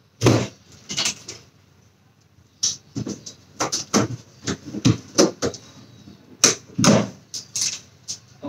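Clear plastic stretch wrap around a cardboard carton being handled and pulled at by hand: irregular crackles, rustles and light knocks, a dozen or so separate sounds at uneven intervals.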